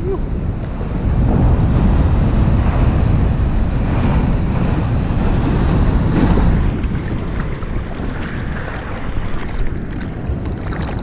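Big waves breaking on an offshore reef, a heavy rushing wash of whitewater with wind buffeting the microphone; loudest for the first six seconds or so, then easing.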